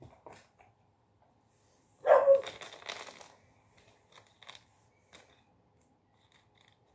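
Cardboard jigsaw puzzle pieces being handled and shuffled, with a loud rustle about two seconds in and scattered small clicks as pieces are picked up and set down.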